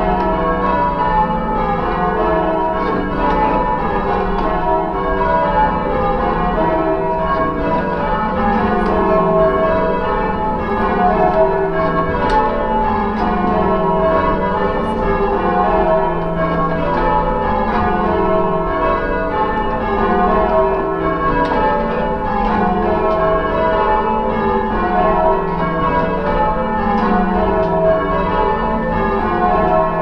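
A ring of church bells ringing full-circle in change ringing, heard loud from inside the tower's ringing chamber. The strikes follow one another in evenly spaced descending runs from the highest bell to the lowest, repeated over and over.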